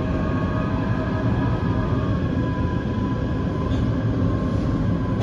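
Taipei Metro train running on the line, heard from aboard: a steady rumble of wheels on track with a few faint, steady whining tones over it.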